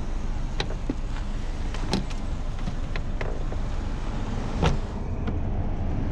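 A car engine running with a steady low rumble, with several sharp clicks and knocks over it, the loudest a thump about two-thirds of the way in.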